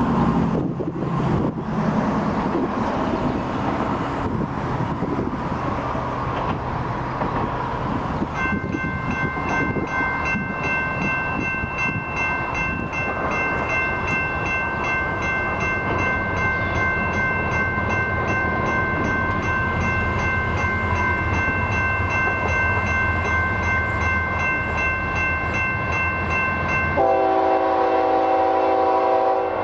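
About eight seconds in, a grade-crossing warning bell starts up as a train approaches: a steady high ringing with a fast pulse. Near the end the approaching diesel locomotive blows its air horn, a loud chord of several notes.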